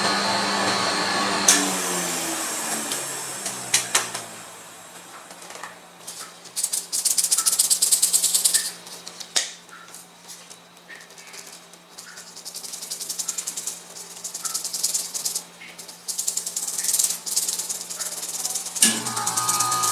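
A motor runs down with falling pitch over the first few seconds. Then metal spatulas chop and scrape rapidly on an ice cream roll cold plate in several bursts, with a few sharp clicks. A motor starts up again near the end.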